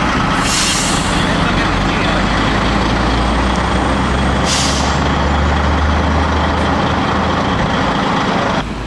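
Heavy truck engine running close by, its low rumble growing louder in the middle, with two short air-brake hisses, about half a second in and again about four and a half seconds in. The sound drops abruptly just before the end.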